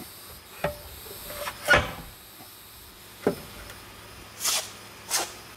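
Johnson 40 HP outboard's lower-unit gearcase knocking against the midsection as it is pushed up and worked into place, three sharp knocks with the second the loudest. Near the end come two short rasping hisses.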